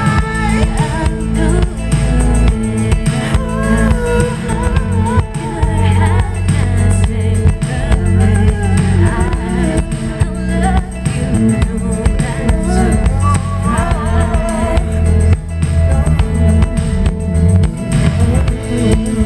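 Pop song playing, with bass, drums and a wavering, wordless melodic line.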